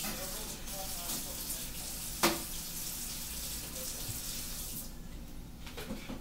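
Kitchen tap running into a sink, a steady hiss that cuts off suddenly near the end as the tap is shut, with a single sharp knock about two seconds in.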